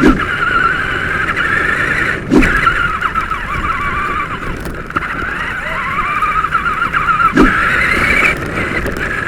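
Electric motor of a radio-controlled car whining as it drives, its pitch rising and falling with the throttle. A few short thumps are heard, about two and a half seconds in and again near the end.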